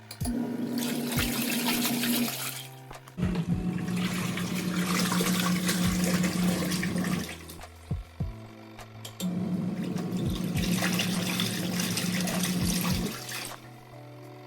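ZENY portable twin-tub washing machine's wash tub agitating a load in water: the pulsator motor hums and the water churns in three runs of a few seconds each, stopping briefly in between.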